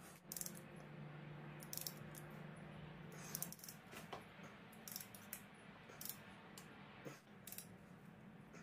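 Light metallic clicks and clinks in short clusters from a ratchet with a torque-angle gauge being set on and turned on cylinder head bolts, during the 90-degree angle-tightening step, over a faint steady low hum.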